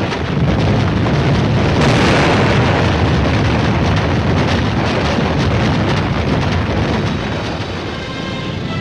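Dense battle noise: a continuous low rumble of explosions with many sharp cracks of gunfire layered over it, easing slightly near the end.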